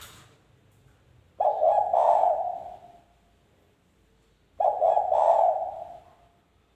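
Spotted dove (derkuku) cooing: two calls about three seconds apart, each lasting about a second and a half.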